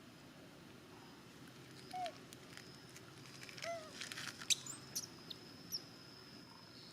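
Monkey coo calls: two short calls that rise and fall, about two seconds apart. Scattered sharp clicks and rustles follow, under a faint steady high whine.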